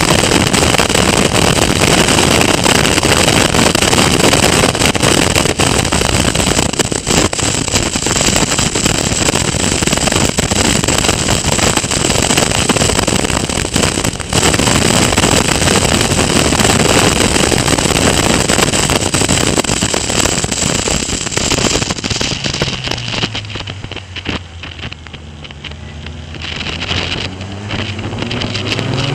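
Caterham Seven Academy race car at speed, heard from the car itself: loud rush of wind over the microphone with the four-cylinder engine running underneath. Past the middle the wind falls away as the car slows for a corner, and near the end the engine note rises as it accelerates out.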